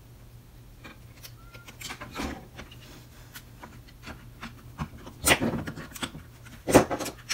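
Plastic drill housing and internal parts being handled and pushed into place, with small scrapes and clicks and two louder sharp clicks in the second half.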